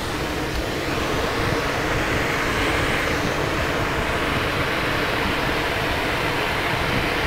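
Steady rush of air streaming past an engineless glider's cockpit in free flight, growing a little louder about a second in.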